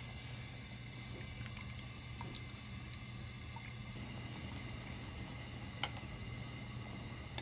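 Pot of beef and radish soup boiling on a gas burner: a steady low hum under faint bubbling and small ticks. A single sharp metallic tick about six seconds in, as the fine-mesh skimmer knocks against the stainless pot.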